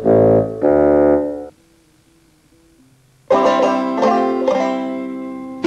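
An advertising jingle ends on three long held notes, then comes about two seconds of near quiet. About three seconds in, plucked-string music in a banjo style starts up.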